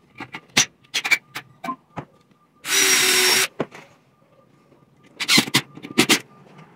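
Cordless drill running for about a second in the middle, driving a screw into a solid-wood board, with a steady motor whine. Short knocks and clicks of the tool and boards being handled come before it, and two short bursts of the drill near the end.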